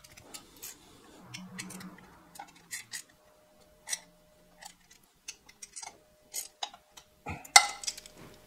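Small socket ratchet clicking in short, irregular strokes as the bolts of a clutch release bearing sleeve are tightened into an aluminium transaxle bellhousing. Louder knocks near the end.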